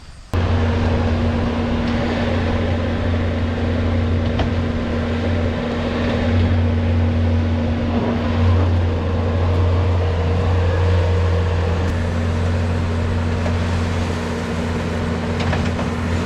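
Tractor engine running steadily at a constant speed, heard close; its pitch steps up slightly about twelve seconds in.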